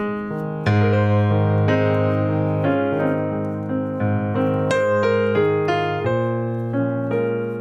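Background piano music, a gentle melody over chords with notes struck and left to ring.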